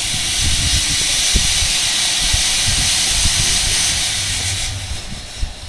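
Steam hissing from a 15-inch-gauge miniature steam locomotive: a loud, steady hiss that fades away about a second before the end, with low rumbling underneath.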